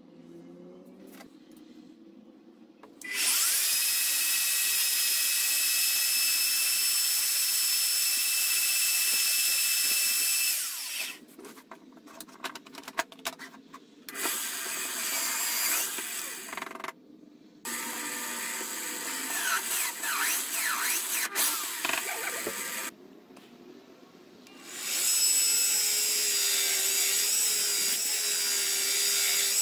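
Bench drill press running and drilling a steel knife blank, in long runs and short bursts with some rising and falling squeaks. After a short pause near the end, a combination belt and bench grinder runs steadily.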